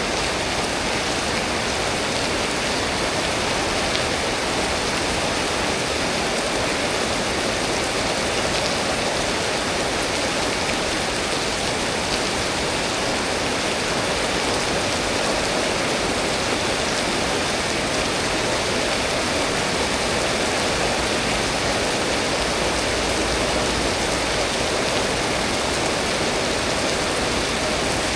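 Steady heavy rain from a tropical storm falling without a break, a dense, even hiss.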